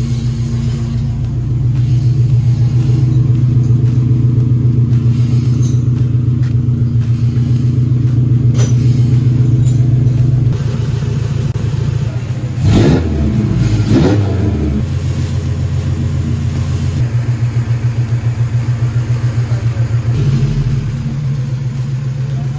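Car's Honda B20 four-cylinder engine running steadily, revved twice about halfway through with the pitch rising and falling, then settling back. The throttle has just had its sticking cable adjusted.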